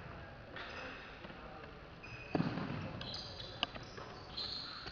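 Basketball thudding on an indoor court during play, with a heavy bounce about two and a half seconds in and sharper knocks after it. Brief high squeaks and background voices are heard over it.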